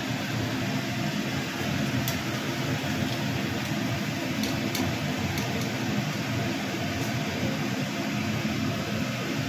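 French fries deep-frying in hot oil in an iron kadai: a steady sizzle, with a few light clinks of the slotted steel spoon against the pan.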